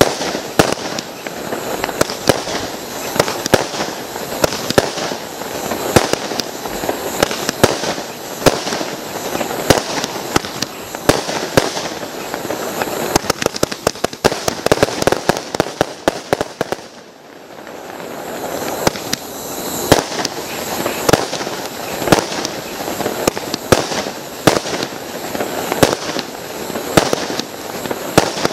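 A Panda GP5024 Fire Dragon 126-shot compound firework battery firing, its 20–30 mm shots launching and bursting in close succession. Past the middle there is a flurry of very rapid shots, then a brief lull before the firing picks up again.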